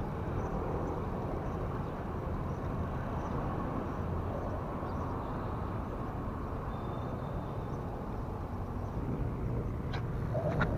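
A steady low engine drone under an even hiss, with a couple of sharp clicks near the end.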